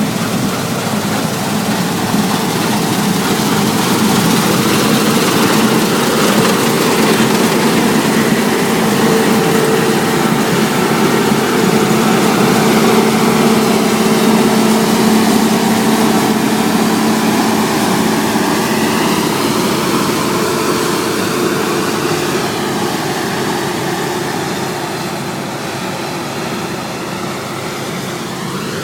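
Claas Lexion 600 combine harvester running, a loud steady machine drone with a constant low hum. It grows slightly quieter over the last few seconds.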